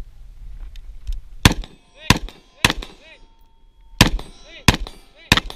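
Six rifle shots from a scoped AR-style rifle, fired in two strings of three about half a second apart, each followed shortly by the ringing ping of a steel target being hit.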